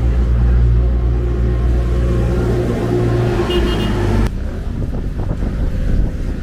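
A vehicle engine running close by with a steady low hum and a brief high squeal about three and a half seconds in. About four seconds in, a sudden cut leads into general city traffic noise.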